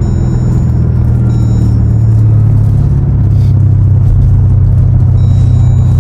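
Jeep Grand Cherokee SRT's 6.4-litre HEMI V8 running with a loud, deep, steady exhaust rumble that grows slightly louder about two seconds in.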